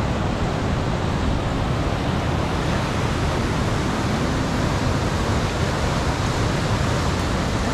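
Fast-flowing mountain river rapids rushing steadily: a constant, even wash of white water.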